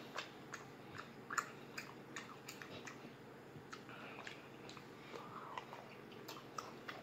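A person chewing cooked shrimp close to the microphone: faint, irregular wet smacks and clicks of the mouth.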